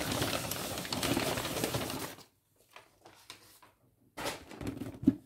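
Brown packing paper rustling and crinkling as a cardboard game box is pulled free and handled, for about two seconds, then a pause and a short low murmur near the end.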